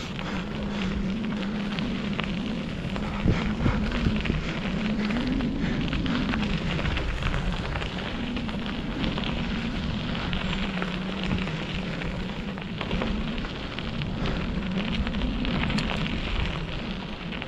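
Bicycle rolling along a dirt and sand two-track trail: the tyres make a steady rolling noise with many small clicks and crunches, under a low hum that rises and falls with speed.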